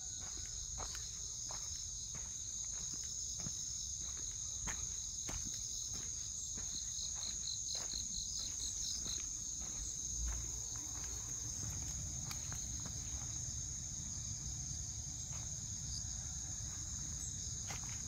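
Steady high-pitched chorus of insects. Footsteps on a leaf-strewn path fall about twice a second through the first half.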